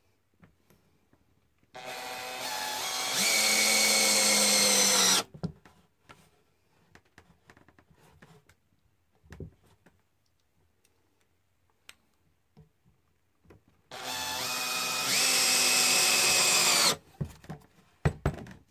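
Cordless drill driving screws through a metal bracket into a wooden ladder rail, in two runs of about three seconds each. Each run gets louder partway through and stops abruptly. Small clicks and knocks from handling fall between the runs.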